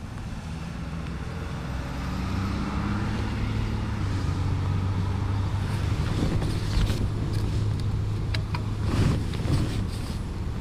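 An engine running steadily nearby, a low hum that grows louder over the first couple of seconds and holds. A few sharp clicks and knocks come in the second half.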